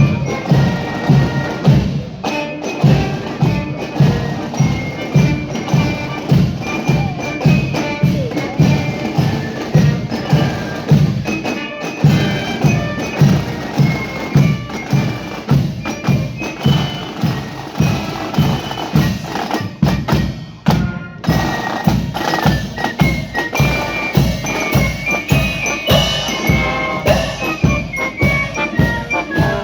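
Marching band playing: a steady bass-drum beat of about two strokes a second under bell-like mallet percussion and melody.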